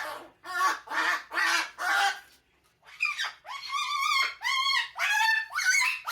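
Umbrella cockatoo making five raspy, cough-like sounds about half a second apart, then a quick run of short squawking calls that bend up and down in pitch.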